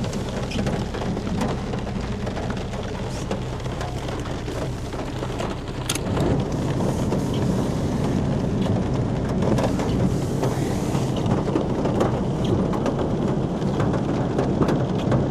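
Heavy rain falling on a car, heard from inside the cabin as a steady, dense hiss that grows a little louder about six seconds in.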